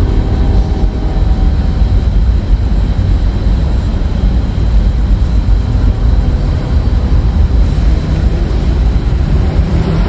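Loud, steady low rumble, with a few faint steady tones fading out about a second in.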